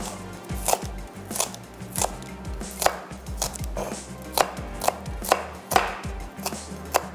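Kitchen knife chopping spring onion whites on a chopping board: about a dozen sharp, uneven strikes, roughly one to two a second.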